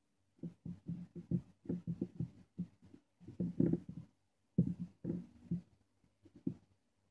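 Soft, irregular knocks and rustles of handling small wires, a battery snap and a soldering iron on a wooden desk while soldering, with a faint steady hum underneath.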